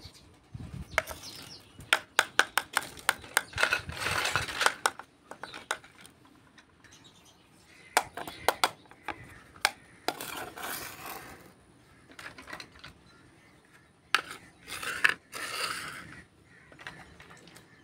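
Small hollow plastic toy kitchen pieces handled and set down on a hard surface, with quick runs of light clicks and taps, and stretches of rustling in between.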